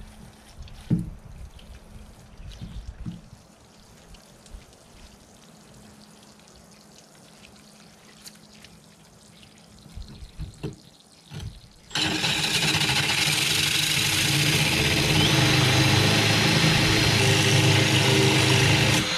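Faint water sounds and a few light knocks, then about twelve seconds in a cordless drill with a diamond hole saw starts grinding through wet aquarium glass and runs steadily for about seven seconds. The cut is nearly through the glass.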